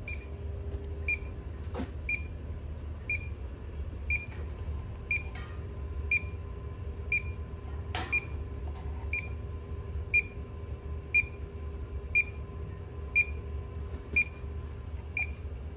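Inficon Gas-Mate combustible gas leak detector beeping steadily, about two short high beeps a second: its probe is picking up gas at a pipe union on the boiler's gas line. A low steady hum runs underneath.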